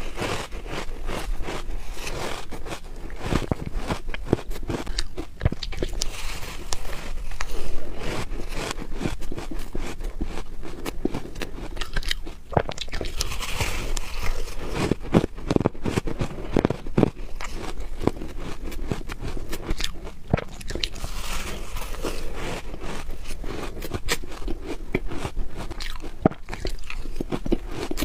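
Close-up bites into soft, squeaky frozen ice (freezer frost and shaved ice): a dense, unbroken run of crunches with a gritty, scraping texture.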